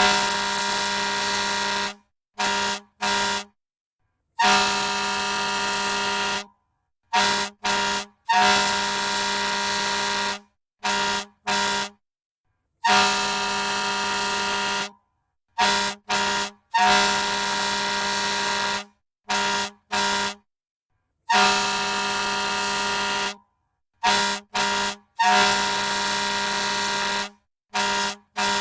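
Fire truck air horn sounding over and over in a fixed pattern: a long steady blast of about two seconds, then two short blasts, with clean silence between them. Each blast is a steady low tone that starts a little louder and then holds.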